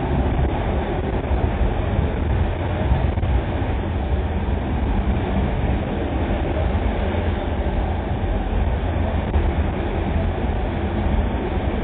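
Steady running noise of a moving passenger train, heard from inside a closed compartment: an even low rumble without distinct rail-joint clicks.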